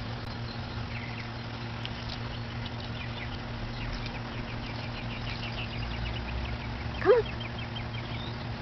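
Animal calls: a long run of faint, short, high peeps, then one louder call that rises in pitch about seven seconds in. A steady low hum runs underneath.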